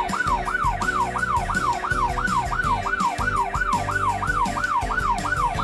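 Emergency-vehicle siren in a fast yelp, its pitch sweeping up and down about three times a second, over light background music.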